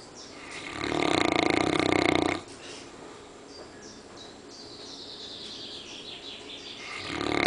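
Newfoundland dog snoring in deep sleep: a loud snore lasting about a second and a half, starting about a second in, and another starting near the end.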